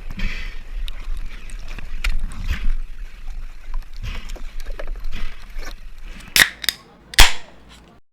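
Water sloshing and gurgling around the camera over a low rumble, with scattered small clicks and two loud, sharp knocks about six and seven seconds in.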